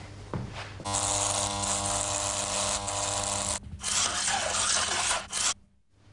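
A small electric motor buzzing with a loud hiss for about three seconds. After a short break a second stretch of hiss, without the steady buzz, runs until it cuts off shortly before the end.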